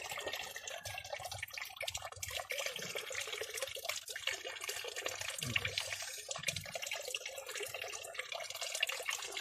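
Water in a koi fry tank trickling and splashing steadily, with many small drips and splashes.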